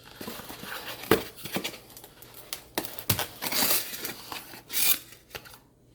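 Shipping box for a live snake being opened and its packing handled: irregular crinkling, rustling and scraping with a few sharp knocks, the loudest about a second in and about three seconds in.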